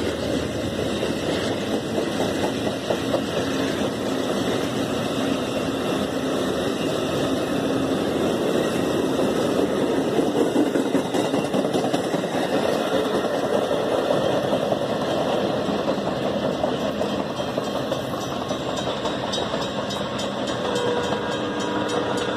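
An Amtrak passenger train's stainless-steel cars passing at speed: a steady rumble and rattle of steel wheels on the rails, loudest about halfway through.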